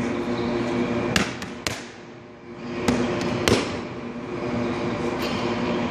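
Boxing gloves smacking into focus mitts: several sharp punches, the loudest about three and a half seconds in, over a steady low hum.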